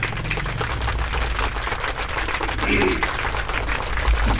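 A small audience clapping in a steady round of applause, with a short snatch of a voice partway through.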